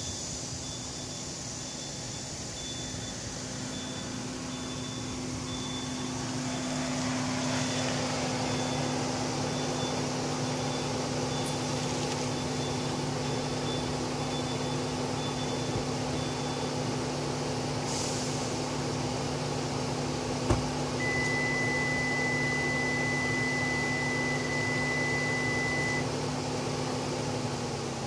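Hyundai Kona's engine idling steadily, kept running by an aftermarket remote-starter's turbo-timer function so the hot turbo can cool down. A faint electronic beep repeats evenly for most of the first two-thirds, and about twenty seconds in a sharp knock is followed by a steady high beep lasting about five seconds.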